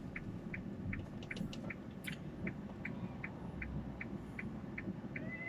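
Car turn-signal indicator ticking steadily, about two and a half clicks a second, over the low hum of the car.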